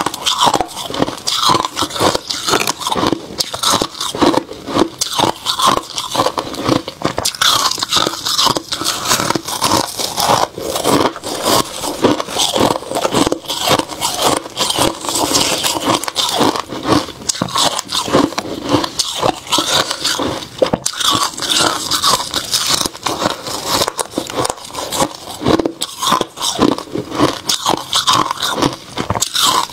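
Freezer frost being bitten and chewed: loud, rapid, crackling crunches, continuous mouthful after mouthful.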